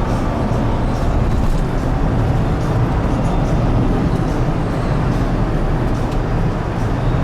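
Steady road and engine noise from inside a moving car's cabin.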